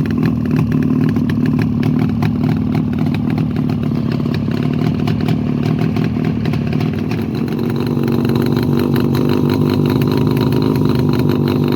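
Freshly overhauled JAWA 350 type 632 two-stroke twin motorcycle engine running steadily at idle. The engine note rises slightly about seven seconds in.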